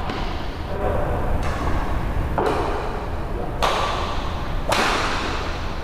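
Badminton rackets striking a shuttlecock in a rally: four sharp hits about a second apart, each echoing in the hall.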